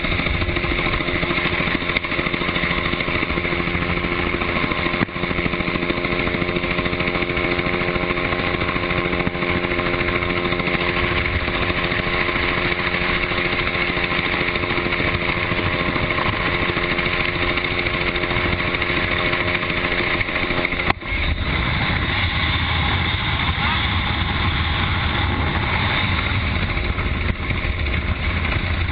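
Helicopter in flight heard from on board: a loud, steady din of engine and rotor with a set of steady tones. About two-thirds of the way through it changes abruptly to a rougher, lower rumble.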